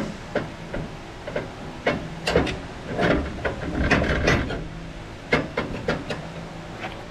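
Hammer blows and metal clanks on a plow share as its plow bolts are knocked into place. The strikes come irregularly, with short ringing, and are busiest in the middle.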